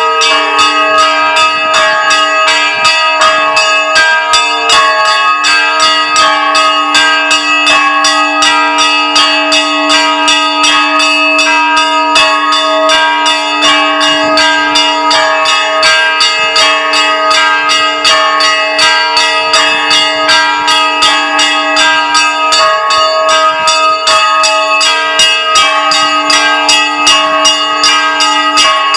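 Russian Orthodox church bells rung in a continuous peal: quick, rhythmic strikes on the smaller bells over the steady, lingering hum of the larger bells.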